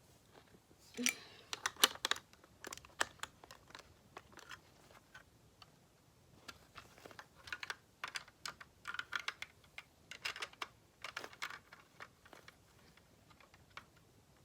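Plastic Lego bricks clicking and clattering as the pieces of a Lego puzzle box are handled and pressed together, in irregular runs of small clicks with short pauses.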